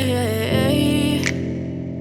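Slow, sad pop song playing. A long sung note slides downward and fades out a little past halfway, over a soft, steady instrumental backing.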